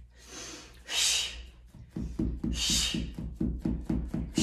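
A dog scratching at an itch near her tail, thumping rapidly and evenly against the floor from about halfway through; sometimes it's that loud. Two sharp breaths out from a person exercising come first.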